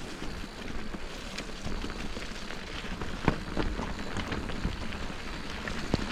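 Bicycle riding over a trail: steady tyre noise with the bike rattling and clicking over bumps, and sharp knocks about three seconds in and near the end.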